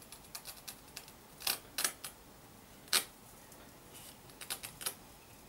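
Sharp scattered clicks and small cracks from a scored porcelain stoneware tile as a tile breaker is slowly turned tighter on it: the tile is starting to crack along its score line. Two clicks come about a second and a half in, a louder single one near the middle, and a quick run of them near the end.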